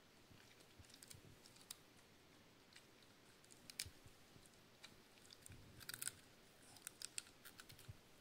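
Cavalier King Charles spaniel chewing a cauliflower floret: faint, irregular sharp crunches, coming thicker about six to seven seconds in.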